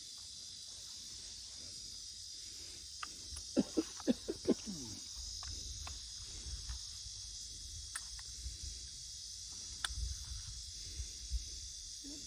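Insects singing in a steady, high, shrill chorus. A quick run of about five knocks about four seconds in.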